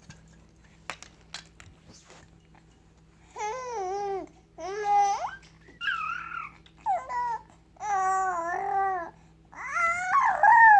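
A 20-week-old baby babbling and cooing. After about three seconds of quiet comes a string of about six high-pitched squeals and coos, each sliding up and down in pitch, and the last one is the loudest.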